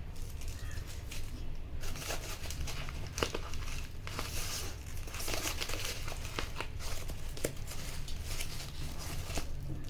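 Packaging being crinkled and torn open by hand, a dense crackling rustle starting about two seconds in, over a steady low hum.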